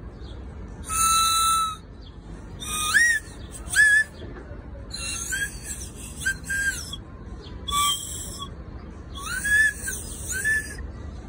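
A child blowing a candy whistle lollipop in about eight short, breathy toots, some held and some sliding upward in pitch, playing a little tune on it.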